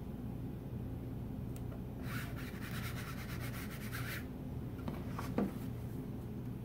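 A hand rubbing and smoothing an adhesive chalk-paint transfer stencil down onto a wooden board: rapid scratchy strokes for about two seconds. Near the end a few clicks and one louder knock as the wooden frame is handled and lifted off the cutting mat.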